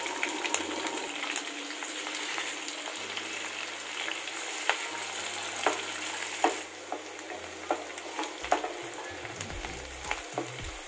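Chopped onion and green chillies sizzling steadily in hot oil in a nonstick pan; the sizzle eases about two-thirds through. From about halfway, a wooden spatula stirs them, knocking and scraping against the pan in a string of sharp taps.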